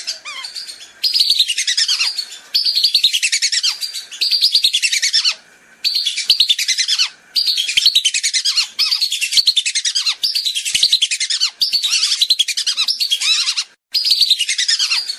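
Whistling ducks calling: rapid runs of clear, downward-sliding whistled notes in bursts of one to two seconds with short breaks between them. This is a whistling-duck lure call of the kind played to draw the birds in.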